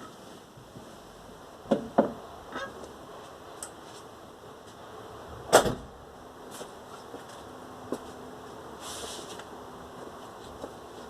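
Irregular knocks and clunks from the front end of a VAZ 21099 as the steering wheel is turned: two sharp knocks about two seconds in, lighter ticks, and the loudest clunk about halfway through. The owner suspects a worn steering rack.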